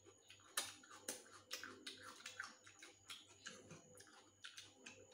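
Faint eating sounds from noodles being eaten with a metal fork at the table: a quick, irregular string of short clicks and smacks.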